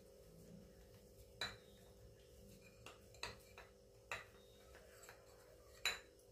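Small steel bowl clinking and knocking against the counter as date-sweet mixture is pressed into it and worked out by hand: about six sharp clinks, the loudest near the end, over a faint steady hum.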